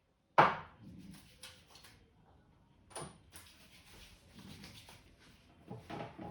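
Head massage by hand: a sharp loud slap about half a second in, then rhythmic slaps and taps of the barber's hands on the head and shoulders at a few strokes a second, growing faster and louder near the end.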